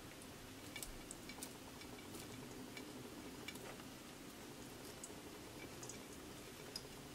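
Eggs cooking in a nonstick frying pan: a faint, steady low sizzle with scattered small clicks and crackles as the mushroom filling is tipped onto the omelette and spread with a silicone spatula.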